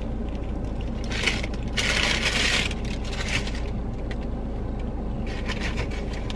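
A paper food wrapper rustling and crinkling in several short bursts, loudest about two seconds in, over a steady low hum, while someone chews a breakfast muffin sandwich.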